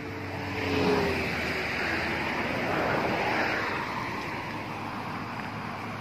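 A road vehicle passing close by: a tyre and engine hiss that swells to its loudest about a second in, holds, then fades away over the last couple of seconds, with a faint engine note falling in pitch as it goes by.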